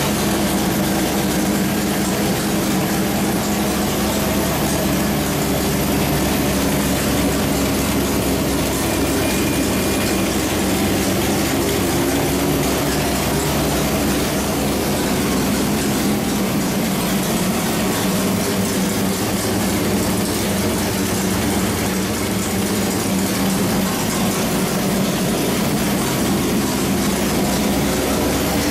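Small-block Chevrolet 383 stroker V8 running on an engine dyno at a steady speed, its note holding constant with no revving up or down.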